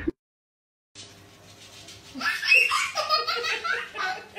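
About a second of silence, then people laughing in a small room.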